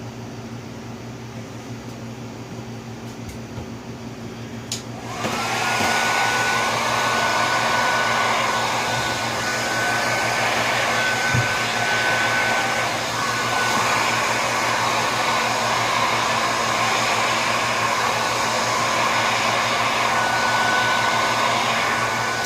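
A handheld hair dryer switches on about five seconds in, its motor whine rising quickly to a steady pitch, and blows steadily until it cuts off at the very end. Before it starts there is only a low steady hum.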